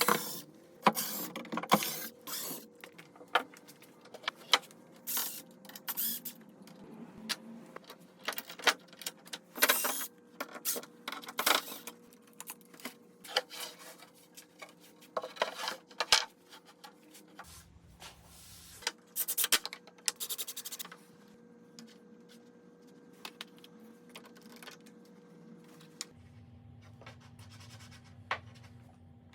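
Workshop handling noises from woodworking: a run of irregular knocks and clicks with scraping and rubbing of wood and tools, and a faint low hum in the last few seconds.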